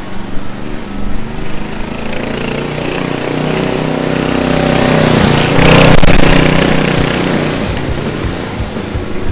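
Lowered Murray riding lawn mower's engine running as it drives past, growing louder to a peak about six seconds in, then fading.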